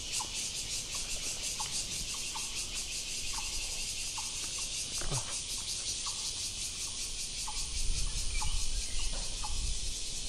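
Steady, high-pitched insect chorus that pulses rapidly, with short chirps scattered through it and a low rumble near the end.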